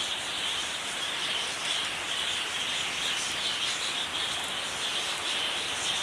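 Soft chirping of a group of small exotic finches in an aviary, over a steady high-pitched hiss.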